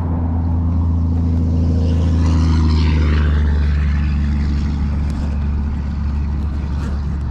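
Steady low engine drone at one constant pitch, growing louder over the first two or three seconds and easing off toward the end.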